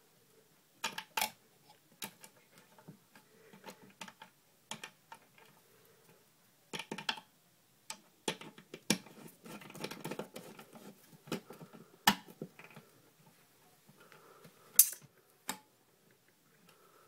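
Irregular clicks, taps and scraping of hands and a tool working stiff wire into the metal terminal lugs of an electric meter socket. A few clicks stand out sharply, the loudest about twelve and fifteen seconds in.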